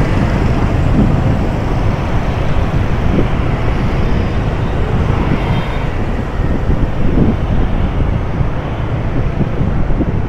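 Steady city road traffic: engines and tyres, with wind rumbling on the microphone as it moves along the street.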